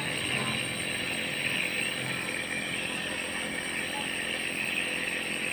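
Steady buzz of a small motor running without a break.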